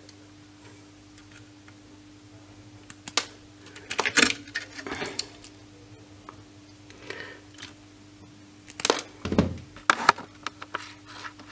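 Scattered small clicks and rustles of hands handling an LED TV's thin backlight wires and their plastic connectors, over a faint steady hum.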